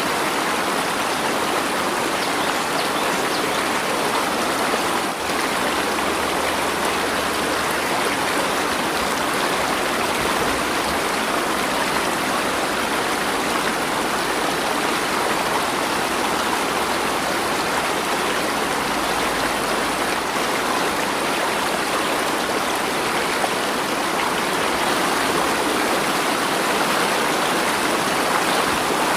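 Water in a stream flowing steadily: an even, unbroken rushing with no pauses.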